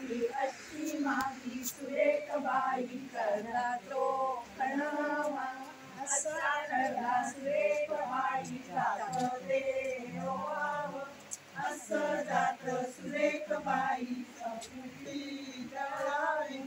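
A group of women singing a folk song together without instruments.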